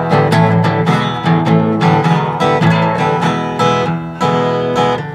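Resonator guitar fingerpicked, a steady run of plucked notes, a few a second, each ringing on before the next.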